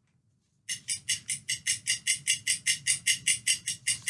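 A man sniffing hard through his nose in a rapid run of short snorts, about six a second, starting just under a second in. He is snorting a line of powder.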